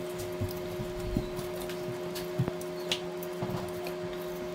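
Light clicks and soft knocks as baked chicken wings are turned over on a wire rack pan, a few scattered taps over a steady background hum.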